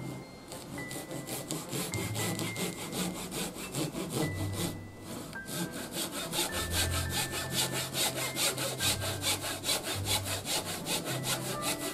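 Hand saw cutting a thin wooden shoji lattice strip in short, quick, even strokes, about four a second, with a brief pause about five seconds in.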